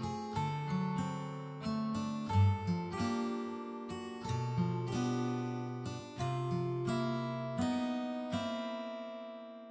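Soft instrumental background music: a slow melody of single notes, each starting sharply and fading away, with the last note dying out near the end.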